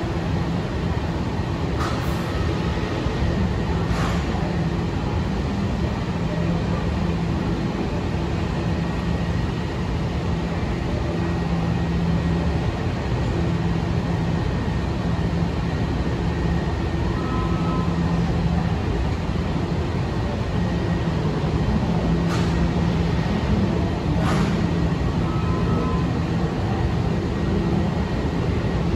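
Washington Metro Red Line train running in an underground station: a steady rumble with a low hum that swells and fades, and a few faint clicks.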